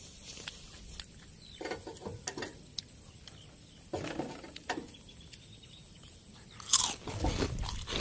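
Close-up crunching and chewing of crispy deep-fried battered street food, in short bites with pauses between. The loudest, sharpest crunch comes near the end.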